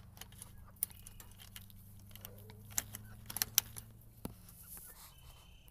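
Scattered metallic clicks and rattles of door latches being fastened on a wooden chicken coop, over a faint low steady hum that fades out about four seconds in.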